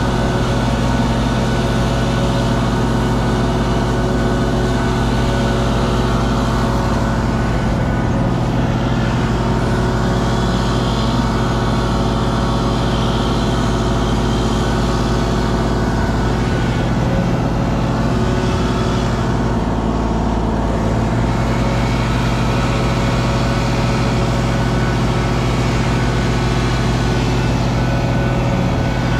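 Kubota KX033 mini excavator's diesel engine running steadily at working speed.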